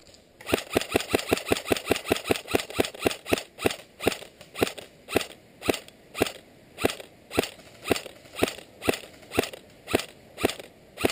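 Airsoft rifle firing a long string of sharp single shots: about five a second for the first three seconds, then slowing to a steady two a second.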